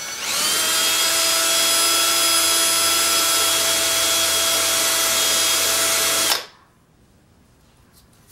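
Cordless drill drilling a hole to be tapped in the back of a milling machine table. It spins up at the start, runs steadily at one speed for about six seconds, and cuts off abruptly.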